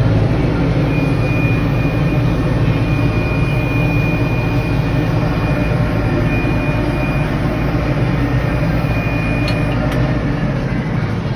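Massey Ferguson 4707 tractor's diesel engine running steadily under load while it drives a rotary cutter (bush hog) through tall weeds, heard from inside the cab. A thin, high, steady whine runs through most of it.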